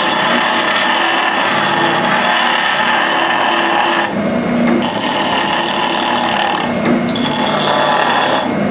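Automatic saw sharpener's grinding stone grinding the teeth of a shingle saw blade over a steady motor hum. The grinding drops out for under a second about four seconds in and briefly again near seven seconds.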